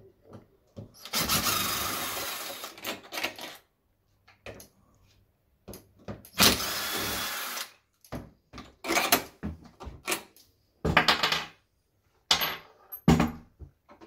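Cordless driver running twice, for about two seconds and then about a second and a half, backing out the two fixing bolts of a UPVC door handle. After that come a series of short clicks and knocks as the loosened metal handle and its fittings are handled.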